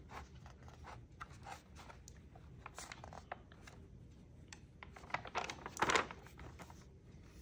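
Paper rustling and soft scratches as a child's hands rub and shift on the pages of a large picture book, then a louder swish about six seconds in as a page is turned.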